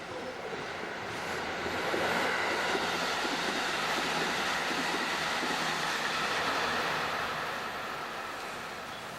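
Meitetsu electric train passing close by on the track, its wheel and running noise swelling about two seconds in, holding with a steady high tone over it, and fading away near the end.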